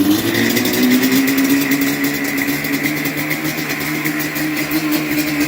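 Yamaha Banshee's twin-cylinder two-stroke engine running, its revs climbing a little in the first second and then holding steady. This is the engine's first run after being rebuilt and reinstalled.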